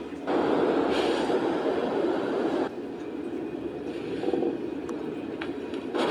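A steady rumbling noise with no clear pitch that turns suddenly louder shortly after the start, drops back abruptly about two and a half seconds later, and jumps up again near the end.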